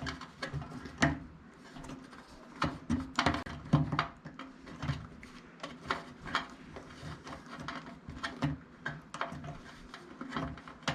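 Irregular clicks, taps and light knocks of plastic and metal parts being handled and fitted together during reassembly of a microwave's turntable motor.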